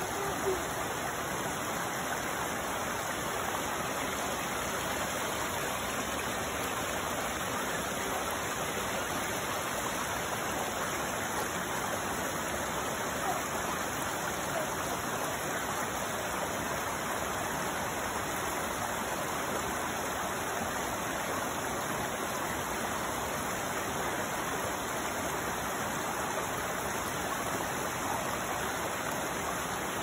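Small, shallow mountain stream running over rocks and pebbles: a steady, bubbly rush of water.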